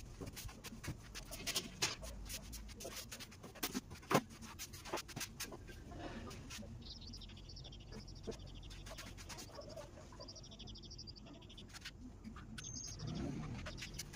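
Scattered light knocks and clatters of wooden planks and a board being handled. From about seven seconds in, small birds chirp faintly in a quick high chatter.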